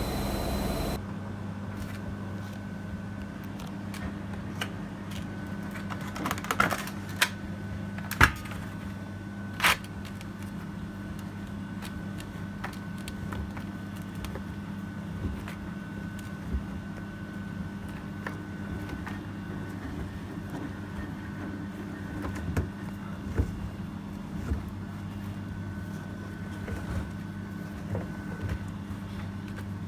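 AEG Öko-Lavamat 73749 washing machine near the end of its cycle: a running sound cuts off about a second in, leaving a steady low hum with scattered clicks and knocks.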